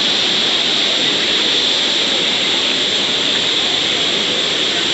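Waterfall and river water rushing, a loud, steady, unbroken noise.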